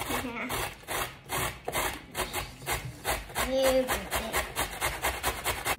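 A spatula scraping and stirring thick carrot cake batter in a stainless steel mixing bowl, in quick, even strokes of about four a second that speed up near the end.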